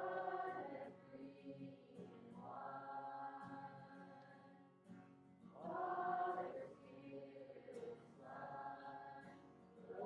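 Group of voices singing a worship song in long, held phrases. The recording is poor and thin.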